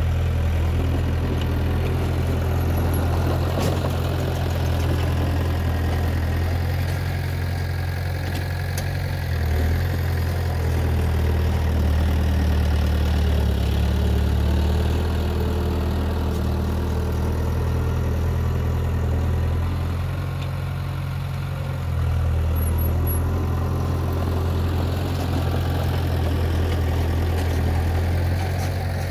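Heavy diesel construction machinery engine running steadily with a deep hum, easing off briefly about twenty seconds in and picking up again two seconds later.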